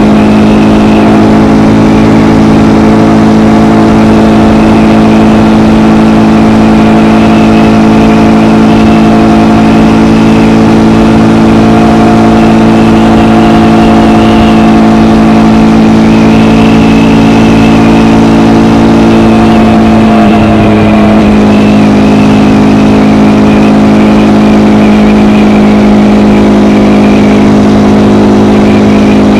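KTM Gen 3 Duke's single-cylinder engine through its stock exhaust, running at steady revs. About two-thirds of the way through the engine note dips briefly, then holds steady again.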